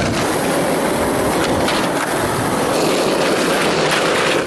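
Skateboard wheels rolling, a steady, even rumble of wheel noise.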